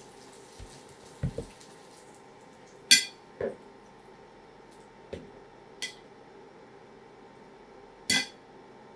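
Metal tongs and utensils clinking and knocking against a ceramic plate while a burger is assembled. The clinks come singly: two sharp, ringing ones about three seconds in and near the end, several lighter knocks in between, and a couple of dull thumps about a second in.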